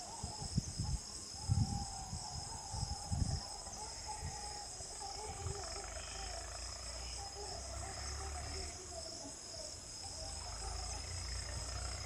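Night insect chorus: a steady high-pitched trill with a regular pulse. Over it runs a softer wavering mid-pitched call, with a few low thumps in the first three seconds and a low rumble from about five seconds in.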